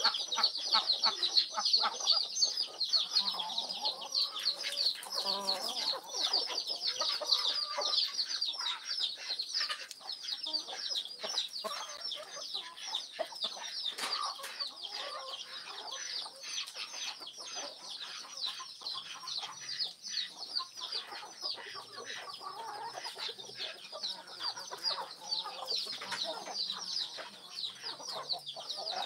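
Farmyard chickens clucking, over a dense, continuous chorus of quick, high chirps.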